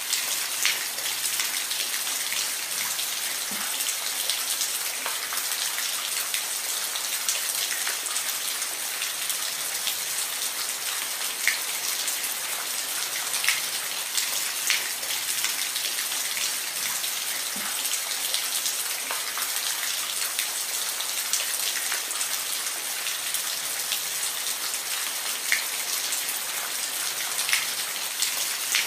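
Steady rain with a constant hiss and scattered individual drops ticking on a surface.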